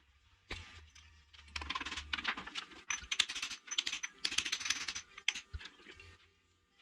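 Quick runs of small metallic clicks and taps in several bursts, with a faint high ring, as metal tools and parts are handled.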